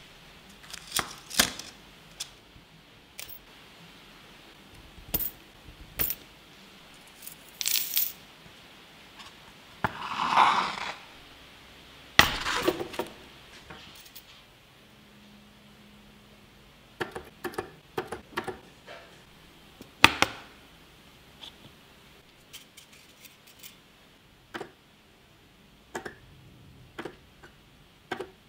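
Workbench handling noise: scattered clicks and clinks as a plastic tub holding a bagged roll of nickel strip is handled and a battery spot welder's electrode holder is adjusted, with a brief rustle of the plastic bag about ten seconds in.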